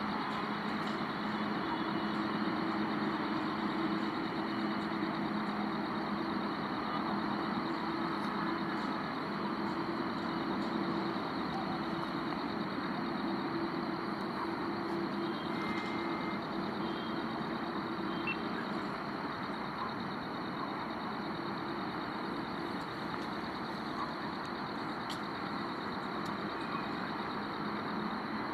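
Steady mechanical hum of a running engine or machine, with two steady low tones that weaken about halfway through.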